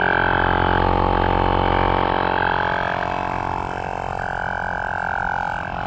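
Portable 12-volt tyre inflator running against a van's wheel, giving a steady buzzing drone.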